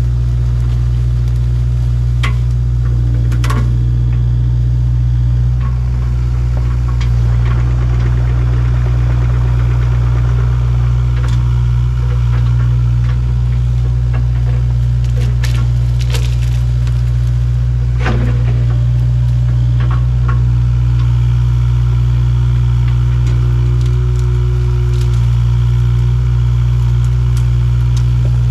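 Kubota KX057-4 mini excavator's diesel engine running steadily under load, with several sharp cracks and snaps of branches as the brush is grabbed and crushed.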